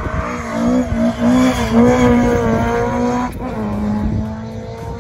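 A classic saloon car's engine revving hard as it is driven round the track, its pitch rising and falling. A little over three seconds in the sound changes suddenly to a steadier, lower engine note.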